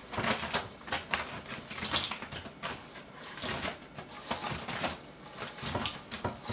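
Sticky chocolate-coated cereal squares being poured from a stainless steel mixing bowl into a plastic zip-top bag: an irregular clatter and patter of pieces dropping and sliding against the bowl, with no steady rhythm.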